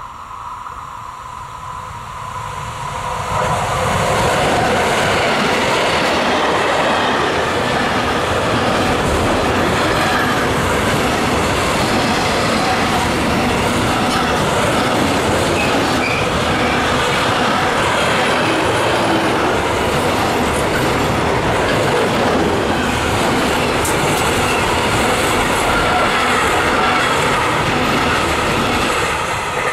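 A freight train of container wagons hauled by an SBB Cargo Re 482 electric locomotive passing. The wheel-and-rail noise grows over the first few seconds as the locomotive arrives, then holds at a loud, steady level as the wagons roll by.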